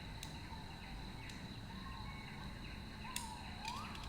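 Faint background ambience: a steady high whine with a few short, faint rising bird chirps near the end, and two faint clicks, one just after the start and one about three seconds in.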